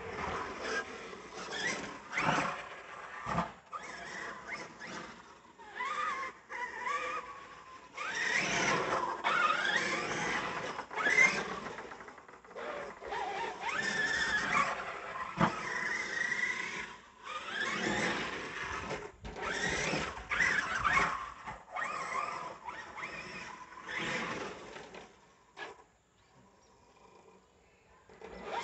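Losi DBXL-E 2.0 electric 1/5-scale RC buggy's brushless motor and drivetrain whining, the pitch rising and falling with repeated bursts of throttle as it drives over grass and a dirt jump.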